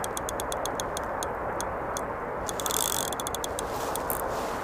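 Daiwa Regal Bite Run spinning reel clicking in quick, even ticks, about six a second, as a hooked fish is reeled in. There is a short rush of hiss about halfway through.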